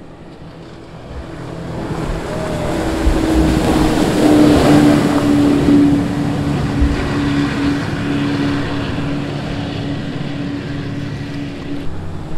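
Performance powerboat running at speed as it passes, its engine drone and hull-on-water rush swelling for a few seconds, then slowly easing off with a slight drop in pitch as it goes by.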